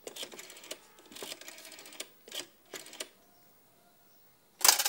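A telephone being dialled, apparently a coin-operated one: a run of irregular clicks for about three seconds, then a quiet pause and a short, loud clatter near the end.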